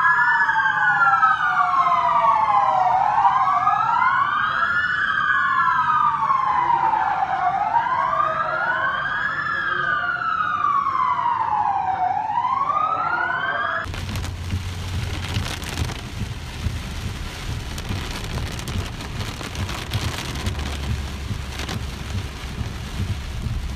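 Several sirens wailing out of step with one another, each rising and falling slowly over about two to three seconds. About fourteen seconds in they stop abruptly and give way to steady heavy rain and wind noise on a moving car, heard from inside, with a low rumble underneath.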